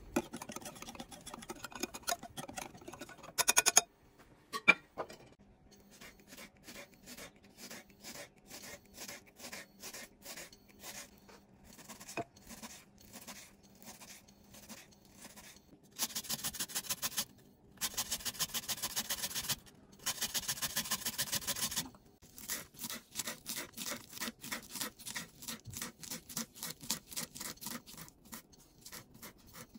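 Kitchen knife chopping vegetables on a bamboo cutting board: a steady run of sharp knocks from the blade, about two to three a second, with stretches of much faster fine chopping in the middle. In the first few seconds a wire whisk clatters in a glass bowl of batter.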